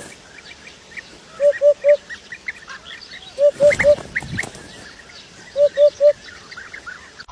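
Bird calls: a short, low, even note given three times in quick succession, repeated three times, over many quicker, higher chirps.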